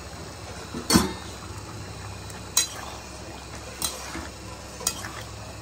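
Metal lid clanks as it is lifted off a wok of simmering ghugni about a second in. A metal ladle then knocks against the wok three times while stirring the thick curry.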